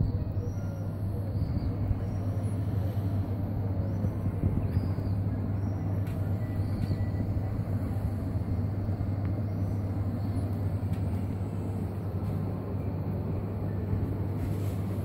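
Steady low hum and rumble of shop refrigeration: the compressors of refrigerated display counters and a chest freezer running. A few faint, short high chirps come through over it.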